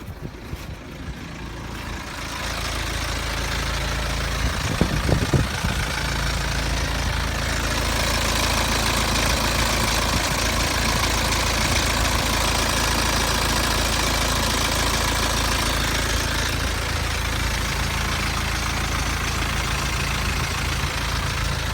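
BMW 320d's four-cylinder diesel engine running steadily at idle, with a few short knocks about five seconds in.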